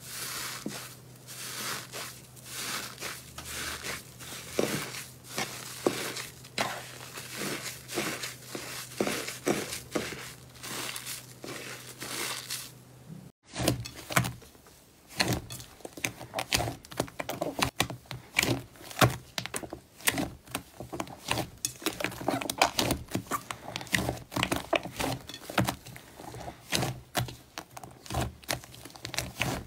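Hands pressing and kneading slime, with dense soft crackling and small popping. About halfway through, the crackle of a pink confetti iceberg slime gives way to the duller, lower squishing and popping of a thick lavender slime being poked and squeezed in a glass bowl.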